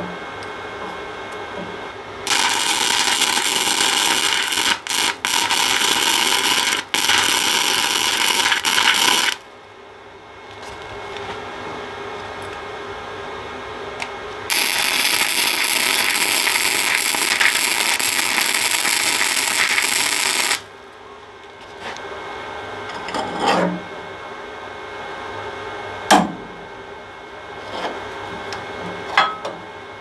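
Electric arc welder sizzling through two welds of about six to seven seconds each, fixing a small steel angle piece to a steel battery tray; the first weld breaks off briefly twice. A few short knocks follow near the end.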